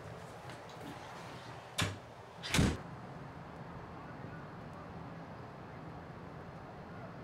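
Two thumps about a second apart, the second one louder, over a steady low hum.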